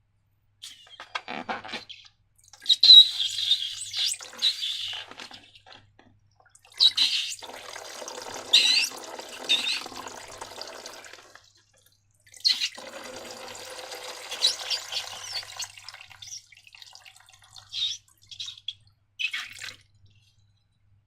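Wet, sticky slime being squeezed and worked by hand, squelching in three stretches of a few seconds each, with short squeaks, then a few brief squishes near the end.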